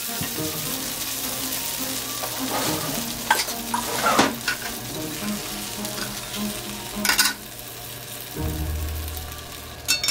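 Oil sizzling in a hot cast-iron skillet around roasted spaghetti squash halves as they are turned, with a few scrapes and knocks of a utensil on the pan. Near the end, metal clinks as a fork and tongs touch the pan.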